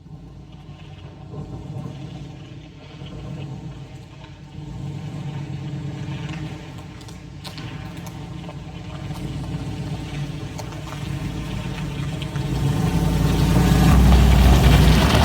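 A vehicle engine running steadily, then throttling up and getting much louder about thirteen seconds in as it takes the load of dragging a chained fallen tree.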